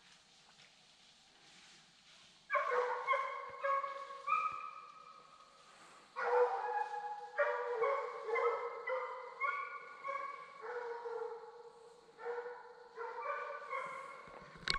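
Redbone coonhounds baying in the dark, starting about two and a half seconds in. They give long drawn-out bawls in repeated bouts, with short breaks between them.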